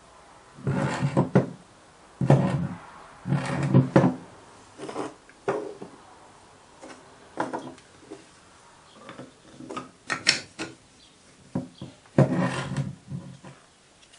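Short scraping and rubbing strokes, about a dozen at uneven intervals, the loudest in the first four seconds and again about twelve seconds in.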